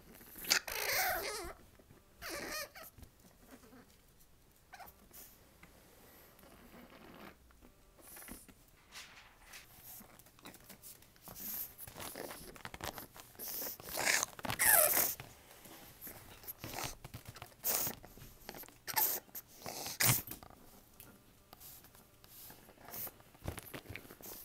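Boston terrier puppy vocalising in several short bouts as it begs to be picked up, the loudest about halfway through, with rustling and knocks between them.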